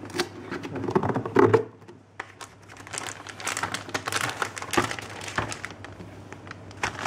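Plastic anti-static bag crinkling and rustling as a motherboard inside it is picked up and handled, starting about three seconds in. A few light knocks of the cardboard box being handled come before it.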